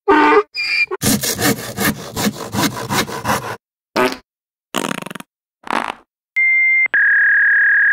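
A string of comic sound effects: two short squawks, then rapid rhythmic scraping strokes of a windshield wiper dragging across the glass. Then three short wet sputters from a squeezed ketchup bottle, and a steady electronic beep tone near the end.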